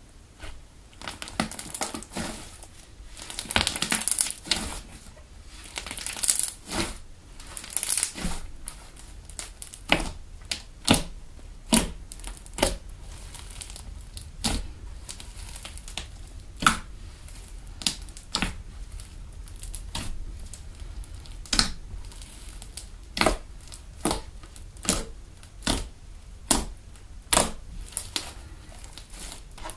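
Foam slime made from PVA craft glue and hand foam, stretched and then kneaded and pressed with the fingers. It crackles densely for the first several seconds, then gives a long run of separate sharp clicks and pops, about one or two a second.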